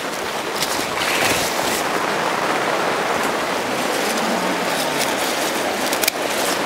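Rain pattering steadily on the plastic roof of a high tunnel, an even hiss that swells slightly about a second in, with a few sharp clicks as basil stems are snipped.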